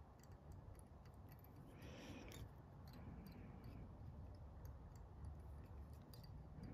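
Near silence with faint, scattered small ticks: tying thread being wound onto a fly hook with a bobbin to build up a tapered body.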